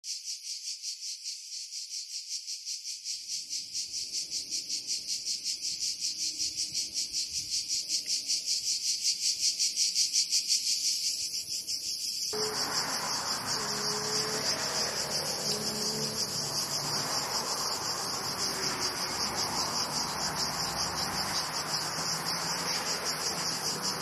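Cicadas singing: a shrill, rapidly pulsing buzz that grows louder over the first ten seconds. About halfway through, a lower rushing background with a few faint held tones comes in underneath.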